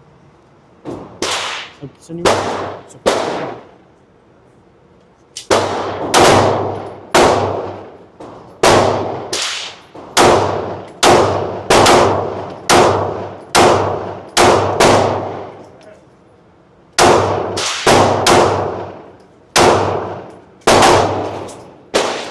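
Gunshots fired one at a time in a long series: about two dozen shots in three runs with short pauses, each sharp crack followed by a ringing tail.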